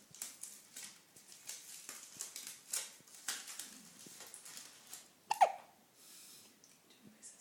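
A pet hiccupping: one sharp hiccup about five and a half seconds in stands out as the loudest sound. Faint short clicks run throughout.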